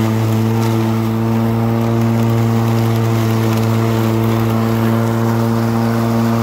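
Stihl 235 cordless battery lawn mower running while cutting grass and clover, its electric motor and blade giving a steady, even hum with a few faint ticks.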